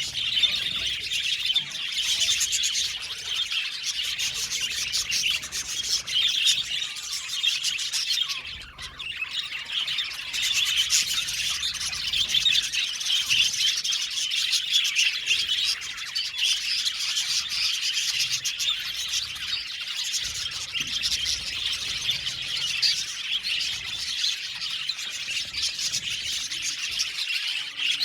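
A colony of budgerigars chirping and chattering continuously, many birds at once, with a brief lull about nine seconds in.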